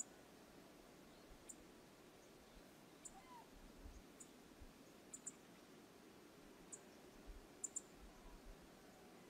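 Near silence: a faint steady rush of moving river water, broken by a scattering of faint, short high ticks.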